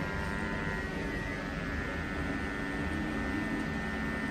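Corded electric hair clippers running with a steady buzz while trimming along the beard and up at the hairline.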